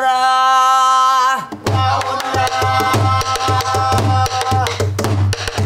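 A woman's voice holds one steady sung note for about a second and a half. Then a buk, the Korean barrel drum used in pansori, is struck in a quick run of beats.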